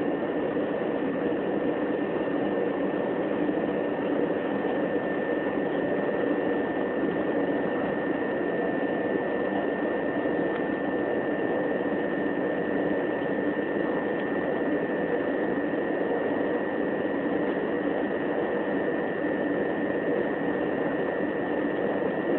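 Interior running noise of a Southeastern Class 375 electric multiple unit at steady speed: an even rumble of wheels on rail and rushing air, with a steady high tone over it.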